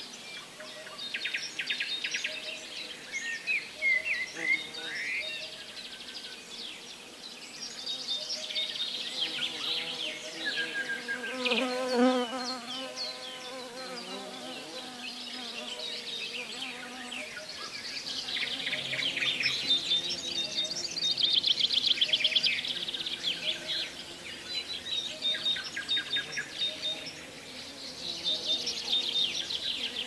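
Birds chirping and trilling high up in the tree canopy, with a buzzing, insect-like trill mixed in. About twelve seconds in, a lower wavering call with several tones rises above them.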